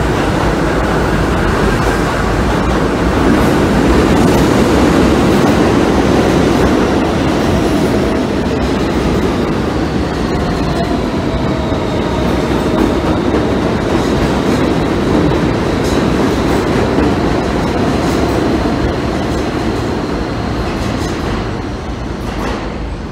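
New York City Subway train running out of an underground station: a loud, steady rumble of steel wheels on rail with clicking over the rail joints and a faint whine that shifts in pitch, easing off near the end.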